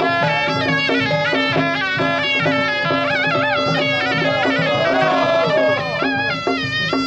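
Suona (Chinese shawm) playing a loud, reedy, bending melody over a held drone note, with light percussion strokes: traditional temple ceremonial music.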